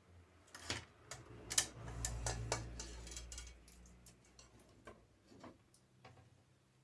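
A series of irregular light clicks and knocks, like small parts being handled during assembly, thickest in the first half, with a faint low rumble under them.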